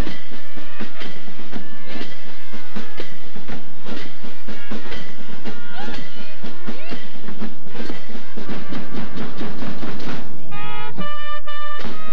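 School fanfare band playing, with drums beating steadily under horn notes. About eleven seconds in the drums drop out briefly and clear held horn notes sound.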